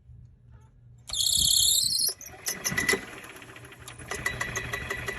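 High-pitched squeal from a Club Car Villager cart's belt drive, lasting about a second and starting about a second in, followed by the engine running with a rapid clatter of ticks. The owner puts the squeaking down to the worn, loose drive belts.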